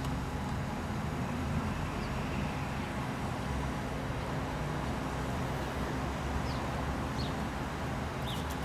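Steady low rumble of distant traffic, with a few brief, faint bird chirps.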